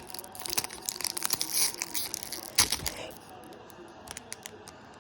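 Foil Pokémon booster pack wrapper being torn open and crinkled, with a sharp rip a little past halfway. The crinkling stops about three seconds in.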